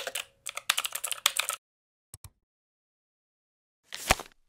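Computer keyboard typing sound effect: rapid key clicks for about a second and a half, then two single keystrokes. About four seconds in comes a short burst of clatter with a low thump.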